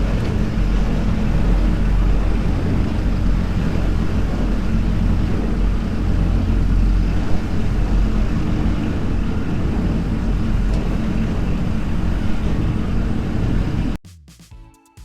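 A tractor's diesel engine running steadily under load while the silage is handled. It cuts off suddenly near the end, giving way to quiet music.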